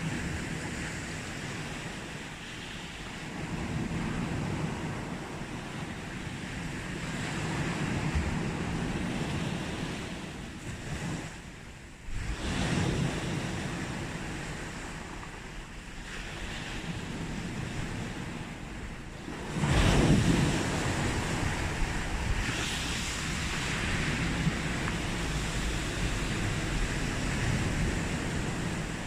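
Sea waves breaking on a beach and washing back, the surf swelling and easing in turn. The loudest wave breaks suddenly about two-thirds of the way through.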